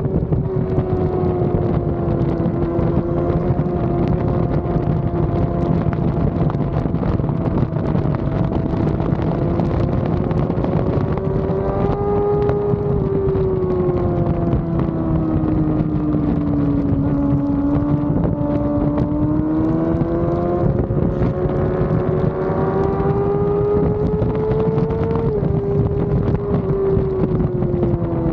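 Yamaha R6 inline-four sport-bike engine running under sustained throttle, its engine note holding a fairly steady pitch that sags and climbs slowly, with a short dip near the end. Wind rushes over the microphone throughout.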